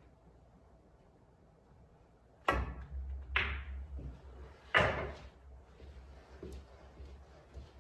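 A pool shot: the sharp click of the cue tip striking the cue ball, a ball-on-ball clack about a second later, then another loud knock over a second after that, all over a low rolling rumble of balls running on the table bed that fades into a few faint clicks.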